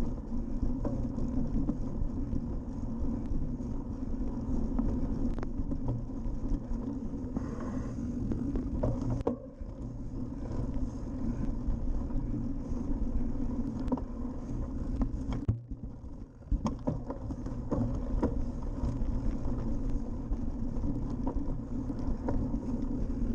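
Cyclocross bike ridden over bumpy grass: a steady rumble and rattle from the tyres and bike, with a few sharp knocks and two brief lulls, about nine and sixteen seconds in.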